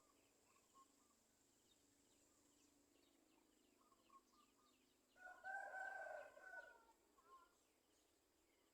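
A rooster crowing once, about five seconds in, lasting about a second and a half, with faint short bird chirps before and after.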